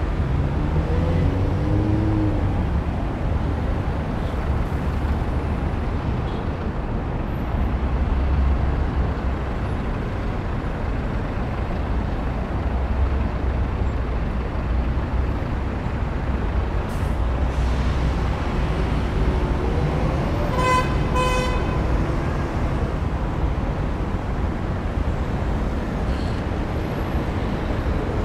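Steady city street traffic ambience, a low rumble of passing cars and buses. About three quarters of the way through, a brief horn toot sounds.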